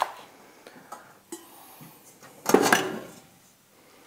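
Metal cooking pots clanking as one is picked out and handled: a few light knocks, then one louder clatter with ringing about two and a half seconds in.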